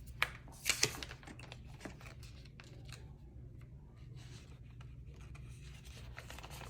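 Paper and cardboard handling: instruction papers slid back into their cardboard packaging, with a sharp tap and a few louder rustles in the first second, then faint rustling.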